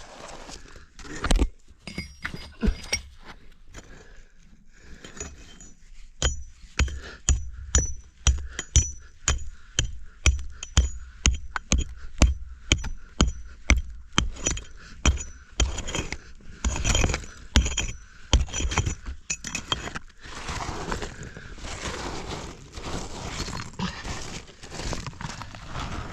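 A metal tool striking rock over and over, about two blows a second, each with a high metallic ring, as rock is chipped away in a cave dig. After about twenty seconds the blows give way to rough scraping and rustling of rock and grit.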